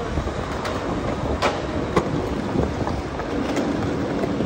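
Steady rumble of a small vehicle rolling over city pavement, with wind on the microphone and a few sharp knocks from bumps in the road surface.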